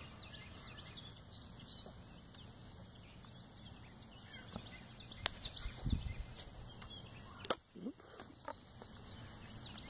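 Faint pondside ambience: a steady high insect drone with a few short bird chirps. Scattered sharp clicks and a low knock break through, the sharpest click about three-quarters of the way through.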